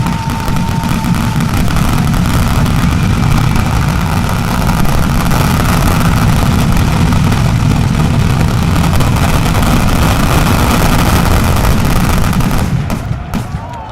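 Mascletà firecrackers going off in a dense, continuous barrage, the bangs packed so close they merge into one deep rumble; it dies away about a second before the end.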